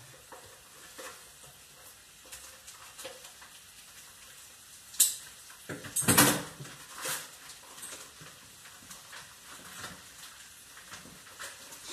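Beef searing in hot oil, a faint steady sizzle, with sharp clatters of a pot or utensil about five seconds in and again about a second later.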